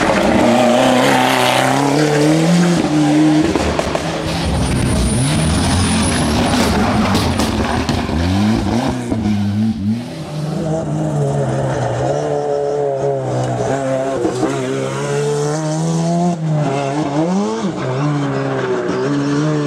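Ford Sierra Cosworth Group A rally car's turbocharged Cosworth YB four-cylinder engine revving hard, its note climbing and falling repeatedly through gear changes and lifts for corners.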